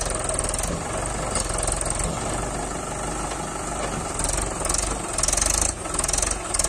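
Mahindra 575 DI tractor's four-cylinder diesel engine working hard under heavy load, pulling a loaded trolley through soft sand. It gets louder about four seconds in, as the strain lifts the tractor's front wheels off the ground.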